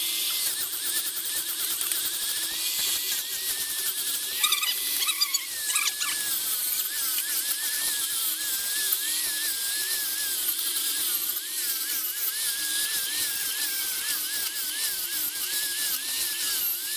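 Small electric angle grinder with a sanding disc running and sanding a carved wooden leg: a steady high motor whine with a hiss of abrasion, its pitch wavering up and down as the disc bears on the wood.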